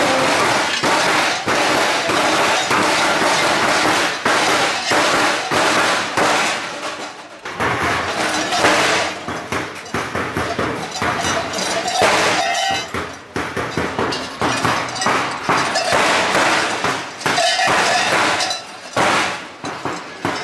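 Wooden clubs beaten rapidly on chained sheet-metal trays, a loud continuous clatter and clang of many overlapping strikes, easing briefly about a third of the way in.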